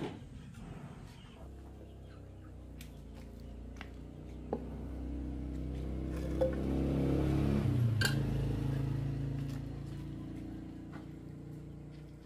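A motor vehicle's engine passes by. Its hum grows louder over several seconds, drops in pitch as it goes past about eight seconds in, then fades away. A few light knocks sound over it.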